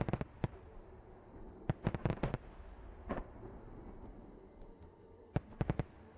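Aerial firework shells bursting: sharp bangs in quick clusters, one at the start, a rapid run about two seconds in, a single bang about three seconds in and another run near the end.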